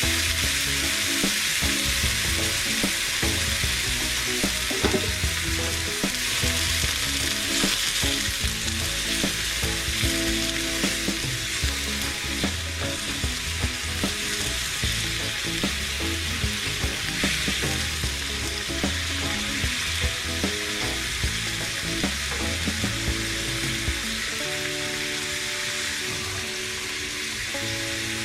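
Food sizzling in hot oil in a pan while it is stirred, with frequent light taps of the utensil against the pan. Background music plays underneath.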